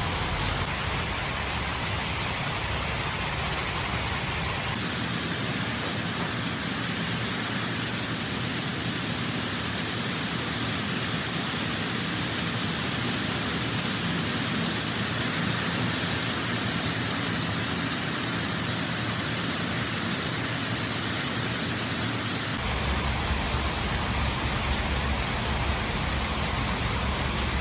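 Steady factory machinery din, a dense hiss-like noise with fine rapid ticking in parts. Its character changes abruptly about five seconds in and again near the end.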